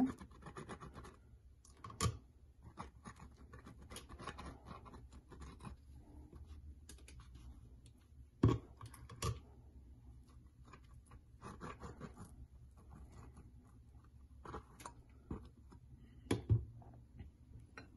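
Faint scraping, rustling and light clicking of mayonnaise being spread inside a pocket of flatbread and the bread being handled, with a few sharper taps along the way.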